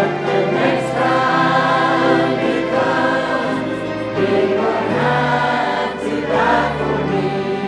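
Church choir singing a gospel song with instrumental accompaniment: voices hold sung notes over sustained bass notes that change every second or two.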